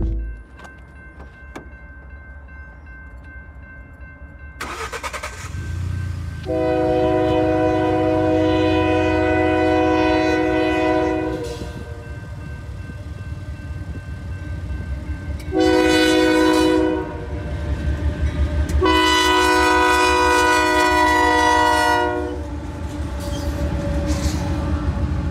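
Union Pacific freight locomotive's air horn sounding three blasts, long, short, long, for the grade crossing, over the growing rumble of the approaching train. Near the end the locomotives rumble past.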